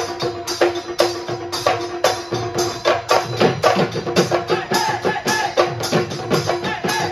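Live Bihu music: several dhol drums beaten in a fast, driving rhythm with clacking and jingling percussion, over a steady held note; a wavering melody joins from about three seconds in.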